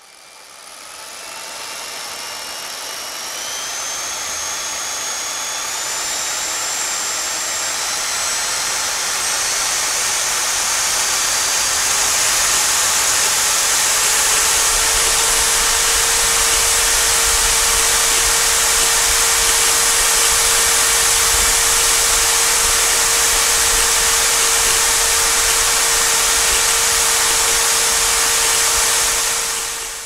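An electric power tool's motor running and spinning up: its whine glides upward in pitch and grows louder over the first dozen seconds, then holds steady at full speed with a strong hiss, and it stops near the end.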